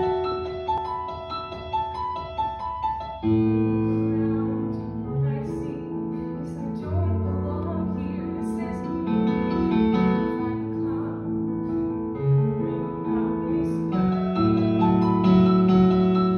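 Piano accompaniment playing, light and higher at first, then changing about three seconds in to fuller, lower chords that carry on.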